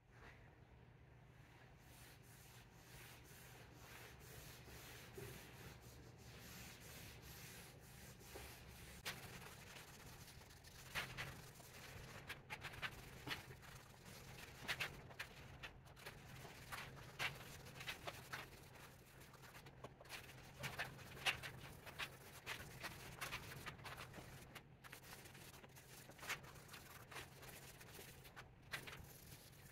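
Faint rubbing of a rag wiping wood stain into a bare, sanded oak tabletop: short, irregular swipes that grow stronger and more frequent from about a third of the way in. A faint steady low hum sits underneath.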